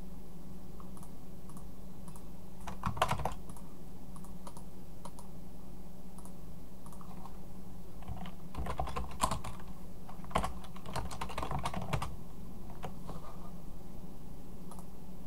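Typing on a computer keyboard in scattered runs of keystrokes, thickest about three seconds in and again from about eight to twelve seconds in, over a steady low hum.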